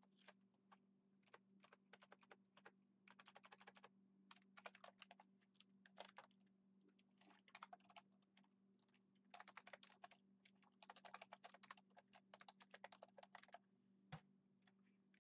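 Quiet typing on a computer keyboard: scattered single keystrokes and fast runs of keys with short pauses between them, ending with one heavier thump near the end. A faint steady hum sits underneath.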